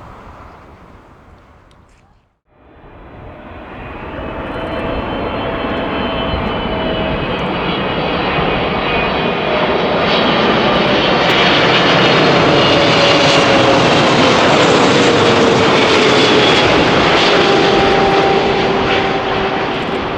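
Jet airliner's engines passing close, a loud roar building to a peak with several whining tones that slide down in pitch, after a sudden drop to silence about two seconds in.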